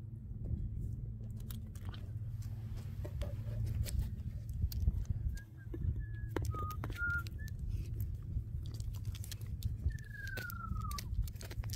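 Low rumble of wind buffeting a phone microphone, with scattered handling clicks. A few short whistled notes sound in the middle, and a single falling whistle comes near the end.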